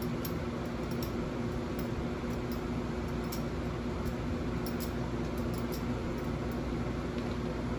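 Steady machine hum with two low steady tones, as from an air-conditioning unit running, with faint scattered light ticks over it.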